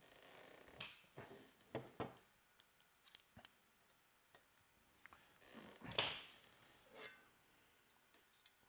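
Faint handling sounds of rifle parts: scattered clicks, taps and short scrapes of metal and plastic as the AK gas tube with its handguard cover is handled and a hex key works its screws. The loudest is a scrape about six seconds in.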